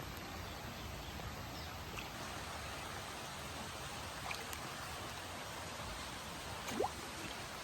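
Steady hiss of rain falling, with scattered light ticks of drops. About seven seconds in there is one short rising squeak.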